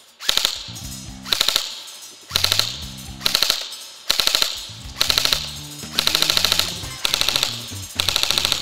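VFC M4 Stinger airsoft electric rifle with a 30,000 rpm high-cycle motor firing short full-auto bursts, about one a second, each a fast rattle of shots that trails off in an echo.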